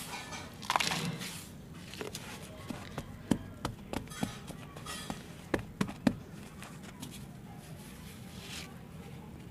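Crumbly dry clay soil scooped into a plastic bowl and packed by hand: a crunchy, grainy rustle about a second in, then a string of sharp taps and pats as it is pressed down, with a faint rustle near the end.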